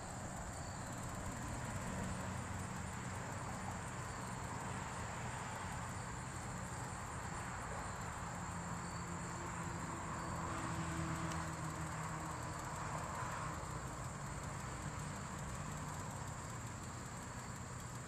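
Insects trilling steadily, a constant high-pitched tone, over a low background rumble that swells briefly about ten seconds in.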